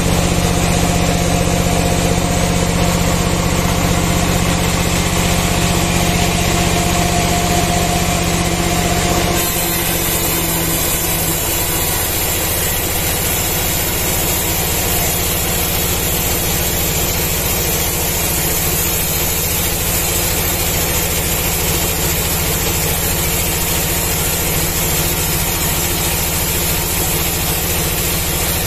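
Band sawmill running as it saws a kruing log: a steady machine hum under the hiss of the blade in the wood. About nine seconds in, the sound shifts to a slightly quieter, hissier hum.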